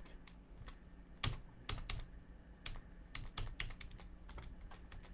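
Computer keyboard keys pressed in a run of quick, irregular clicks, the loudest a little over a second in.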